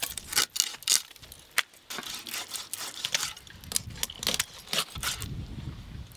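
Irregular clicks and metallic clinks of raw silver carp pieces being handled and dropped into a stainless steel bowl while the fish is cut on a boti blade, with a low rumble near the end.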